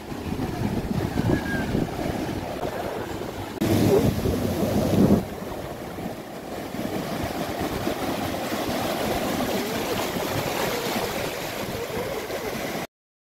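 Sea surf breaking and washing up a sandy shore, with wind buffeting the microphone. A louder wash comes about four seconds in, and the sound cuts off abruptly just before the end.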